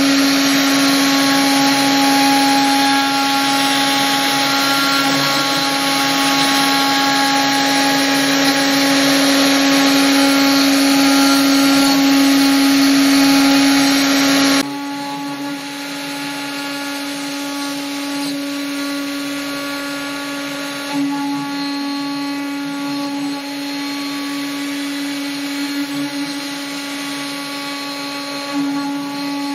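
Spindle of a homemade CNC router running with a steady whine while its bit carves a 3D relief into pine, with the rasping of the cut under it. About halfway through the sound suddenly drops to a lower level and carries on steadily.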